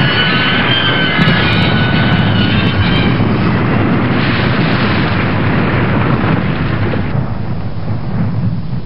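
A train running past on the rails: a loud, steady rumbling noise, with a high squeal over it for the first two seconds or so that fades away. The noise eases off toward the end.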